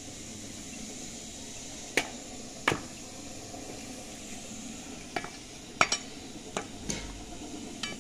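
A series of sharp clinks and knocks, about eight, scattered irregularly over a steady low background noise, two of them in quick succession near the middle.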